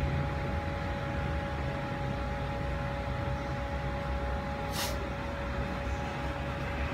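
Steady machine hum with a low rumble and two steady tones, broken by a short hiss about five seconds in.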